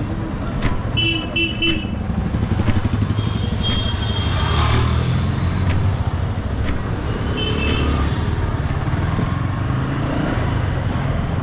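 Yamaha R15's single-cylinder engine running steadily as the bike rolls through street traffic, with vehicle horns beeping several times: short toots about a second in, a longer one near four seconds, and another near seven and a half seconds.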